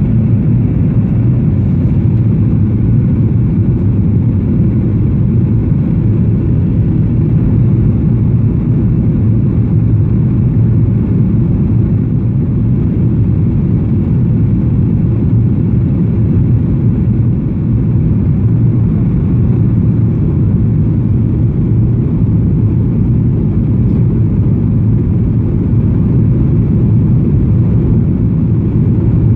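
Steady low rumble of engine and airflow noise inside an airliner's passenger cabin as it descends to land.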